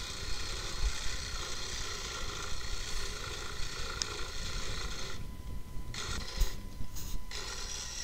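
Reciprocating saw cutting through wooden boards. It runs steadily, stops about five seconds in, then starts and stops again in short runs.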